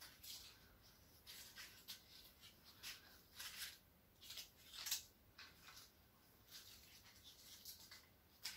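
Faint, irregular crackling and rustling of dry autumn leaves as hands gather and press them together.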